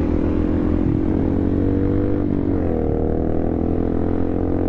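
Honda Grom's small single-cylinder four-stroke engine running steadily under riding. Its pitch sags slightly, then rises about two and a half seconds in as the bike accelerates.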